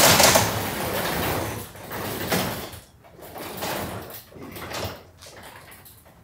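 Sectional garage door running on its opener, a steady mechanical rumble with a low hum that fades out about one and a half seconds in. After that come a few scattered light footsteps on the coated concrete floor.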